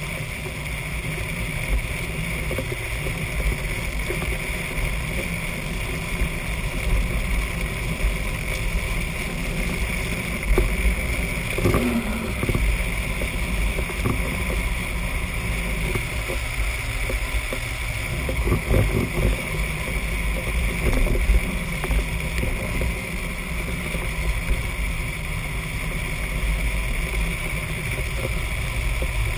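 Wind rushing over the camera microphone and wheels rolling on asphalt as drift trikes coast downhill at speed: a steady, rumbling rush with no engine.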